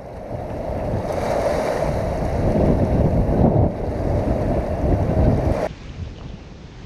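Small river waves lapping and splashing over shoreline rocks, with wind buffeting the microphone. Near the end the sound drops abruptly to a quieter rush of wind.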